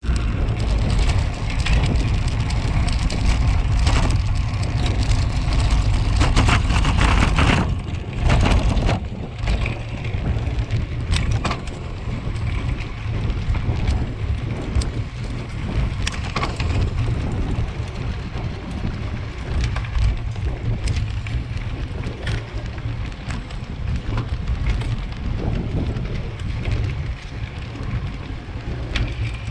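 Road bike riding a cobbled lane, picked up by a camera mounted on the bike: a continuous rattle and clatter from the cobbles under heavy wind rumble on the microphone, loudest for the first several seconds.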